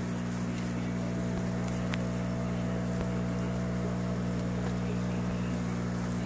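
Steady electric hum from a hydroponic system's water pump, with an even hiss of water trickling through a bed of clay pebbles.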